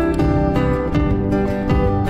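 Instrumental break of a Nepali pop song, with no singing: plucked acoustic-guitar-like notes over a steady bass line, processed with 8D audio's circling stereo panning.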